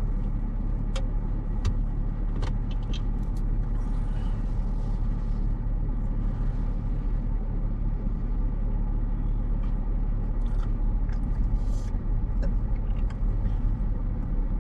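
Steady low hum of a car heard from inside the cabin as it idles and creeps along in slow, backed-up traffic, with a few faint clicks scattered through it.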